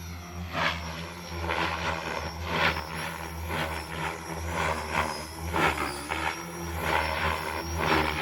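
Beam Archon 500 electric RC helicopter flying 3D aerobatics: a steady rotor hum with a whooshing blade swish about once a second as the collective pitch is thrown back and forth, the loudness rising and falling with each manoeuvre.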